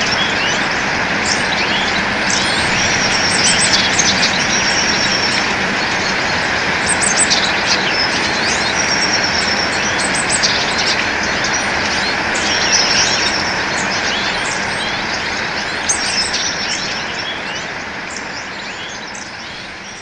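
Several songbirds chirping and calling, with a high trill about a second long repeating every few seconds, over a steady noisy background; the whole sound fades out near the end.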